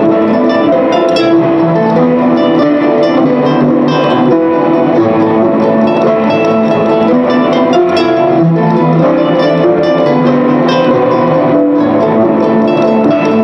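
Live solo guitar music: plucked notes ringing on and overlapping into a dense, sustained texture.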